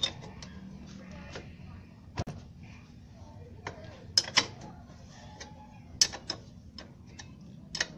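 A wrench clinking on a motorcycle's rear axle nut as it is fitted and turned: a handful of separate, sharp metal clicks over a low steady hum.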